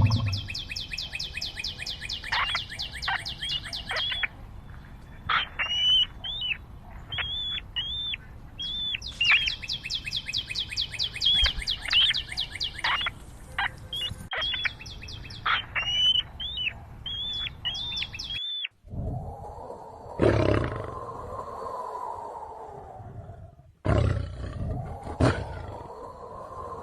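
High, bird-like chirping: fast rattling trills alternating with rows of short, sharp calls. After a sudden cut, a large wild animal roars twice in long, deep calls.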